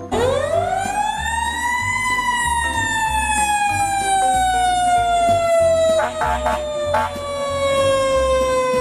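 Fire engine siren winding up over about two seconds, then slowly winding down in pitch, over the truck's low engine rumble.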